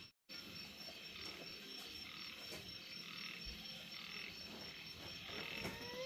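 Frogs croaking in a steady chorus, with a continuous high-pitched tone above it.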